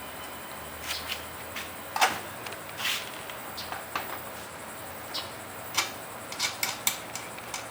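Scattered light clicks and knocks of a fat-tire bike's front wheel being fitted into the fork, with a sharper knock about two seconds in and a quick cluster near the end.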